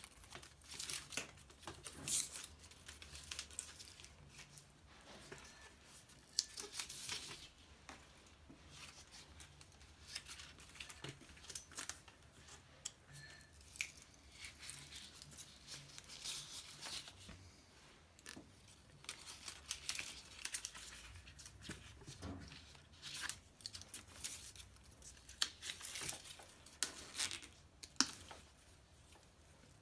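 Road bike bar tape being stretched and wound around the drop handlebar by hand, with irregular, faint rustling and crackling of the tape as it goes on.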